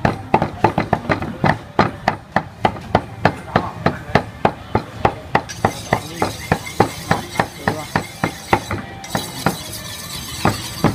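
Cleaver chopping raw pork into mince on a wooden chopping block: rapid, even strokes about four a second, thinning out briefly near the end.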